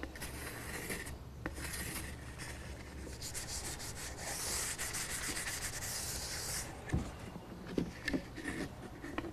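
A wet pad rubbed rapidly back and forth over a thin wooden slat, wetting it for polyurethane glue, making a hissy scrubbing sound that is loudest in the middle. Near the end come a few light knocks as the wood slats are set down on the bench.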